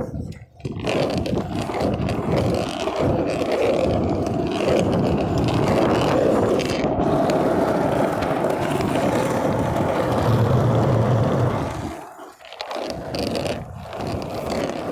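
Longboard wheels rolling over pavement: a steady, grinding rumble that briefly drops away twice, once just after the start and once about 12 seconds in.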